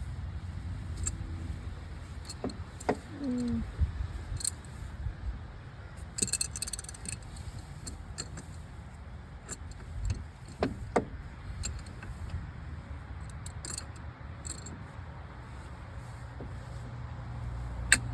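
Scattered metallic clinks and knocks of tools and parts being handled, with a jangling spell about six seconds in, over a steady low hum.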